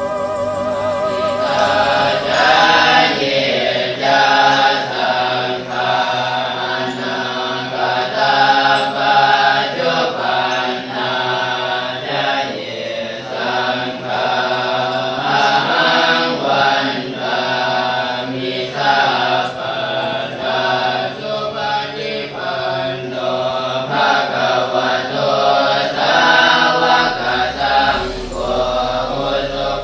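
Several voices chanting together in a choir-like chant, holding notes of about a second each and moving from note to note.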